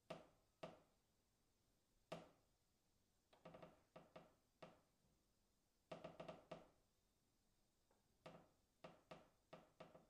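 Faint, distant creaking of a wooden beam: short pitched creaks that fade quickly, some single and some in quick runs of three or four, at irregular intervals.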